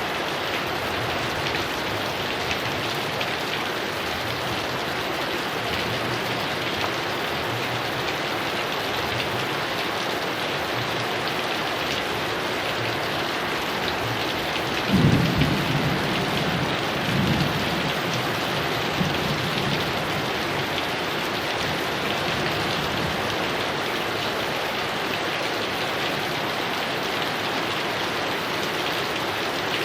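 Heavy rain falling steadily, with a low roll of thunder about halfway through and fainter rumbles just after it.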